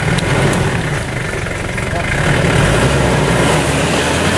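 Isuzu Trooper's 3.1 turbodiesel engine running under load, getting louder about two seconds in, as the stuck truck is driven hard in reverse in deep mud and water.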